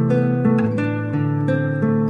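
Background music: an acoustic guitar playing plucked, ringing chords that change every half second or so.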